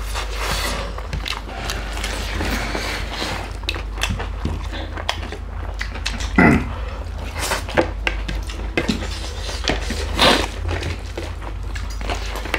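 Close-miked eating sounds of two people eating by hand: chewing, lip smacks and crunchy clicks as food is mashed and bitten, over a steady low hum.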